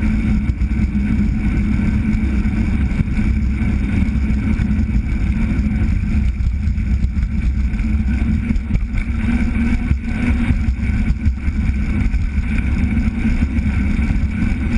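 Riding a bicycle along an asphalt street, heard from a camera mounted on the bike: steady wind rumble on the microphone and road vibration through the frame and mount, with small jolts from bumps in the surface.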